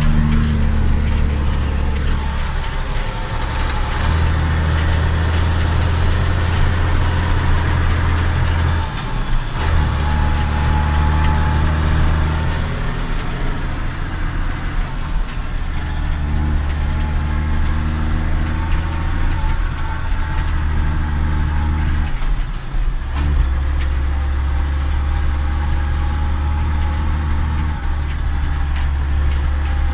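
Case IH Magnum 7140 tractor's six-cylinder turbo diesel running steadily with a deep drone, which dips briefly a few times.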